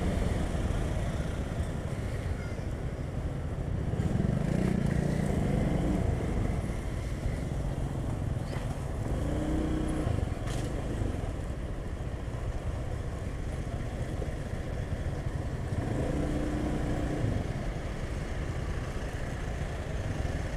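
Motorcycle engine running at low speed while riding past a queue of stopped trucks. A few brief low engine tones from the trucks come through along the way.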